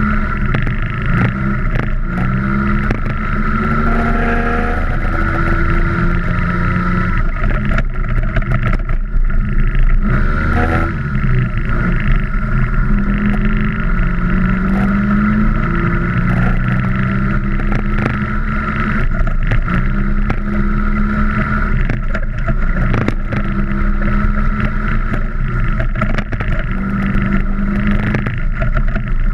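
Vintage Vespa scooter's engine being ridden hard over rough ground, its revs climbing and dropping back again and again. Frequent knocks and rattles come from bumps in the ground.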